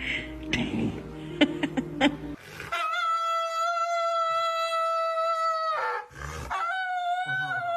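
Dog howling: one long, level howl lasting about three seconds, then after a short break a second howl that wavers in pitch. Before the first howl there are a few sharp clicks.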